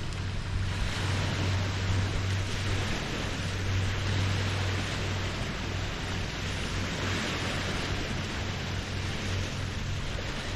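Small Lake Huron waves lapping the shore, the wash rising and falling every couple of seconds, with wind on the microphone. A steady low hum runs underneath.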